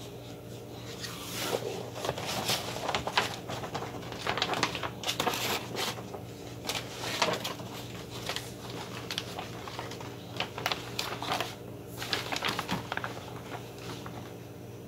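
Heat transfer paper rustling and crinkling in irregular bursts as the sheets are handled, over a steady low hum.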